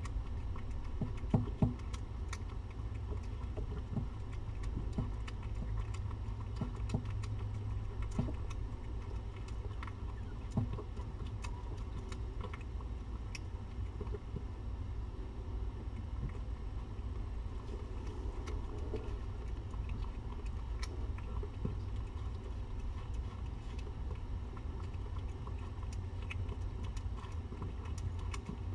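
A cat eating wet food from a stainless steel bowl: scattered small clicks and taps, most of them in the first half, over a steady low hum.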